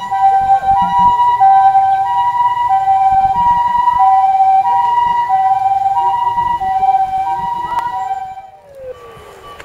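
Japanese ambulance two-tone siren alternating between a high and a low note about every two-thirds of a second, the "pi-po" pattern, over road rumble. It cuts off sharply near the end, where a single siren tone falls in pitch.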